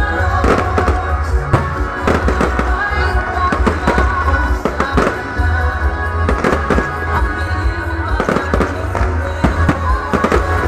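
Aerial fireworks going off in an irregular stream of sharp bangs and crackles, sometimes several a second, over loud music with a heavy bass.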